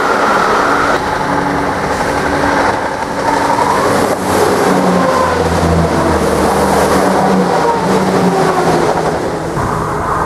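A diesel multiple unit passing, its underfloor diesel engines giving a steady drone over the rumble of its wheels on the rails. The sound changes sharply about a second in and again near the end.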